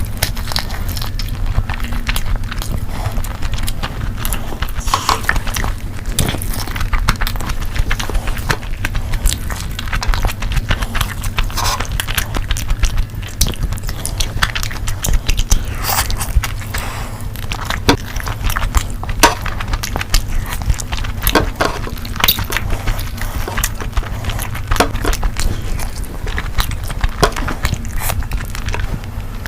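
Close-miked eating sounds: a person chewing food, with many irregular small wet clicks and smacks of the mouth, over a steady low hum.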